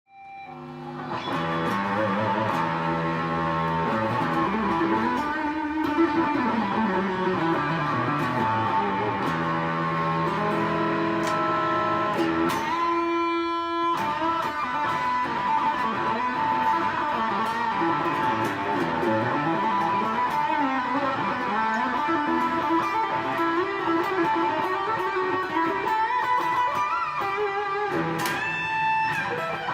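Electric guitar played through a BOSS DS-2 Turbo Distortion pedal: distorted riffs and single-note lines with bent notes, and a long held note about halfway through and another near the end.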